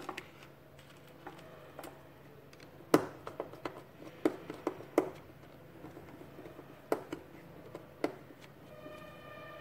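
Scattered clicks and light knocks of hands handling stiff wires and a small screwdriver working a terminal screw on a plastic pilot-lamp block, with quiet room between them.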